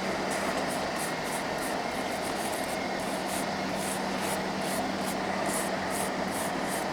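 Mazda Roadster on the move: steady road and running noise with a constant low hum, and short high-pitched ticks or hisses coming unevenly a few times a second, the kind of noise the owner is asking about as a possible abnormal noise.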